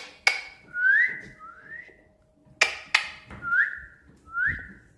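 A person whistling to call a puppy: two pairs of short rising whistles, with a few sharp clicks, one pair at the start and one in the middle.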